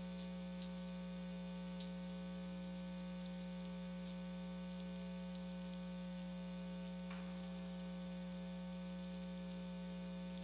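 Steady electrical mains hum from the sound system, with a few faint clicks.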